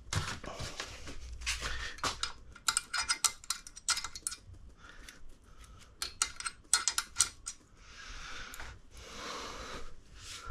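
Small steel tool parts clinking and clicking by hand at irregular intervals, with a few short soft rushing sounds, as a valve spring compressor is set over a valve on a cylinder head.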